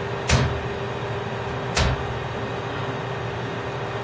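Two sharp slaps of a baby's hand against a wall mirror, about a second and a half apart, over a steady background hum.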